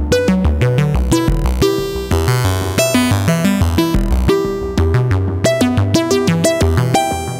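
Xaoc Devices Sofia analog oscillator playing a sequenced line of short pitched notes, about four a second, its timbre evolving under random and LFO modulation, through a touch of spring reverb and tape echo.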